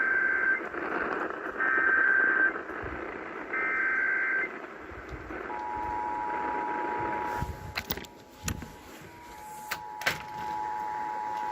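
Emergency Alert System test heard over the radio: three short bursts of the SAME header's warbling digital data tones. About a second later the steady two-tone EAS attention signal starts and holds, with a few sharp clicks of interference about two-thirds through.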